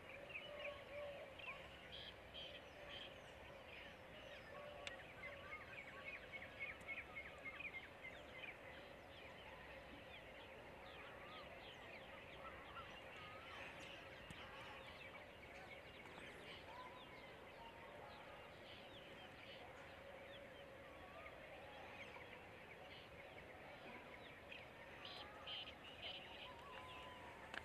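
Faint outdoor birdsong: several birds chirping and calling over and over, with no train or machinery heard.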